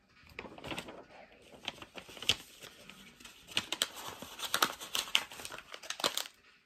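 A paper information leaflet crinkling and crackling as it is handled and rolled up to swat at a fly, a long irregular run of sharp crackles.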